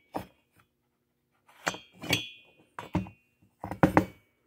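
Metal chainsaw cylinders knocking and clinking as they are handled and set down on a wooden workbench: several sharp knocks, a couple of them ringing briefly.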